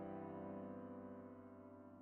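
Background piano music: a held chord slowly fading away.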